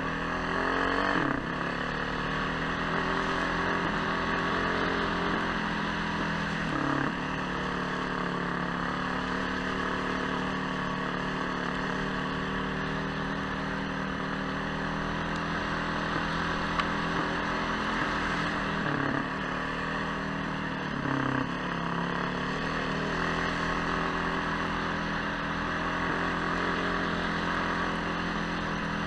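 Vehicle engine running steadily under way on a rough track, its note dropping briefly a few times as the throttle eases or gears change, over steady tyre and wind noise.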